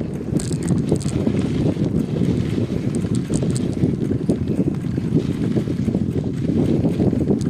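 Strong wind buffeting the microphone: a loud, gusting low rumble, with scattered light ticks and crackles above it.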